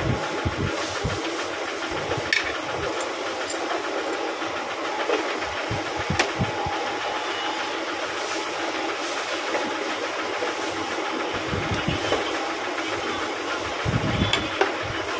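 A steady hiss fills the background, and a spanner clicks against metal a few times as a motorcycle's rear brake master cylinder is unbolted.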